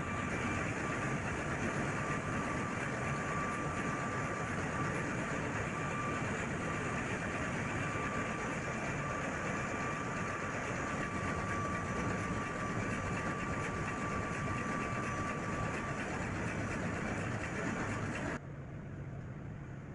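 Ship engine-room machinery running steadily: a dense mechanical noise with a steady high whine over it. About eighteen seconds in, the sound cuts suddenly to a quieter, duller hum.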